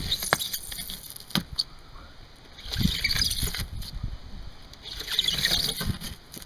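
Utility knife cutting and scraping through the water-damaged styrofoam core of a trailer bunk panel: a few sharp clicks of the blade in the first two seconds, then two stretches of scratchy rasping.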